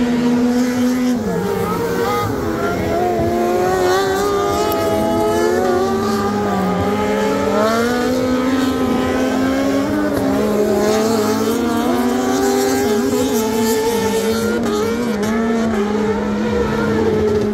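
Racing buggy engines running hard on a rallycross circuit, more than one at once, their pitch rising and falling as they accelerate and lift off through the corners.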